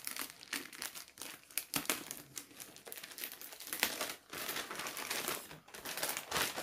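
Glittery gift-wrapping paper being torn open and crumpled by hand: a busy, irregular run of crinkles and rustles.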